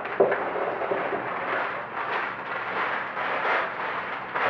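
Sealed plastic bags of Lego pieces rustling and crinkling as they are handled, with the loose bricks inside rattling. There is a sharp click shortly after the start.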